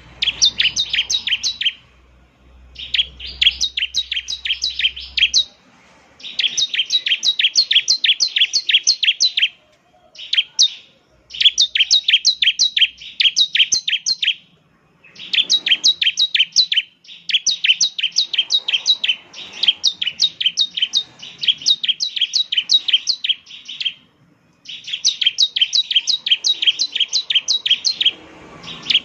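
Bar-winged prinia (ciblek) singing in loud bouts of rapid, sharp, repeated chips, about ten a second. The bouts last a few seconds each and are broken by short pauses.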